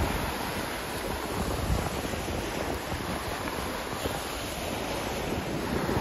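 Ocean surf washing and breaking onto a sandy beach in a steady rush, with wind buffeting the microphone in low rumbles.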